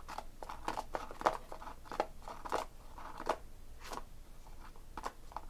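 Irregular crinkling and clicking of trading cards and their plastic holders or wrappers being handled, a quick run of small sharp clicks with short pauses between them.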